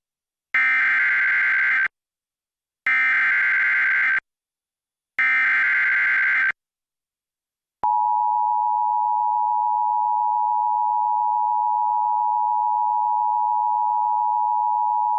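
Emergency Alert System activation: three buzzy bursts of SAME header data tones, each about a second and a half long with short silent gaps. About eight seconds in, the EAS attention signal starts, a steady shrill two-tone sound that heralds a severe thunderstorm warning.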